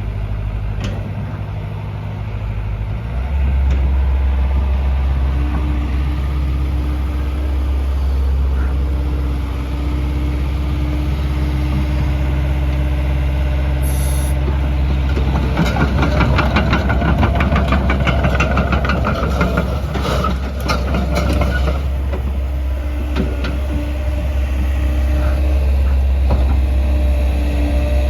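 JCB JS130LC+ excavator's diesel engine running steadily. About three seconds in, the engine note steps up. From about 15 to 22 seconds a louder rattling with a fast, even rhythm joins it.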